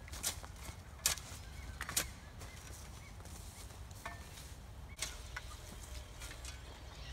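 Bamboo being chopped and split with a cutting blade: a few sharp strikes, the loudest about one and two seconds in, another about five seconds in.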